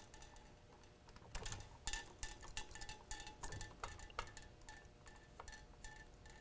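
Faint, irregular light clicks and clinks of small parts being handled as a filter is fitted over the micro switch of a bullet feeder on a reloading press, starting about a second in.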